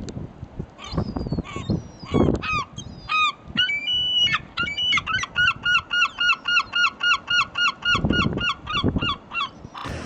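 Gull calling in short honking notes, a few scattered ones at first, then a fast, even run of about three to four a second through the second half that stops just before the end. Low gusts of wind or handling noise sound now and then underneath.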